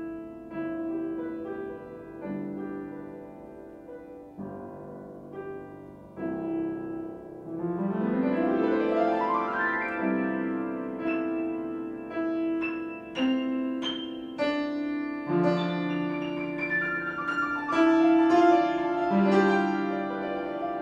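Solo piano playing. It starts with quiet, sparse chords, then grows louder about seven seconds in. A fast run sweeps up the keyboard, and a lyrical melody follows in the lower register under quick right-hand flourishes meant to evoke wind.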